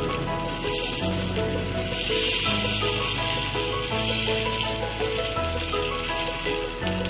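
Batter-coated stuffed ash gourd slices frying in hot olive oil: a steady sizzle that gets louder about two seconds in, with background music playing over it.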